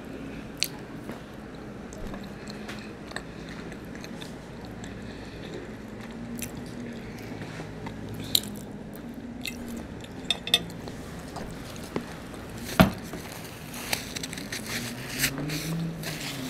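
Close-miked chewing and mouth sounds of someone eating, with a metal fork clinking and scraping on the plate in scattered sharp clicks, the loudest about 13 seconds in.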